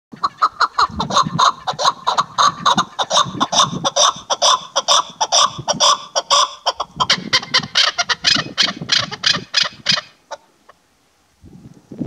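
Chukar partridge calling: a rapid, steady series of loud clucking chuck notes, about six a second, that runs for about ten seconds and then stops abruptly.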